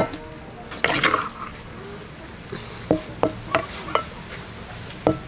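A wooden spoon scrapes and lifts noodles out of a clay mortar onto a plate: a short rustling scrape about a second in, then several light taps of the spoon against the dishes.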